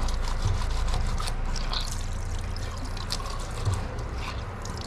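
Tap water running into a sink basin while hands rub and wash a pair of cycling gloves under the stream, with many small splashes and drips.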